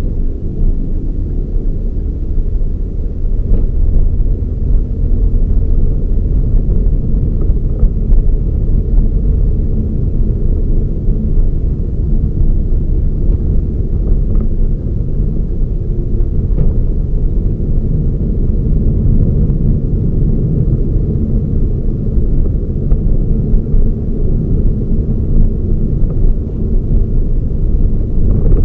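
Toyota Raize GR driving, a steady low rumble of engine and road noise with no clear rises or drops.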